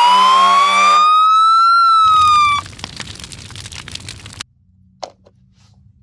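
Toy fire truck's electronic siren: one rising wail that levels off and cuts out about two and a half seconds in, with a buzzy tone over its first second. A couple of seconds of noisy crackle follow, then a few light clicks.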